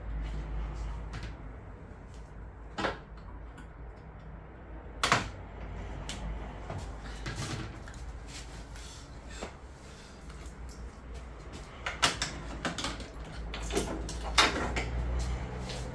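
Irregular sharp clicks and knocks of metal and plastic boiler parts being handled, the loudest about five seconds in and near the end, over a low steady hum.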